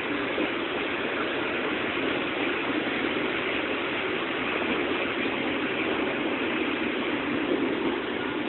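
Rail tank wagons of a departing freight train rolling past: a steady noise of steel wheels running on the rails.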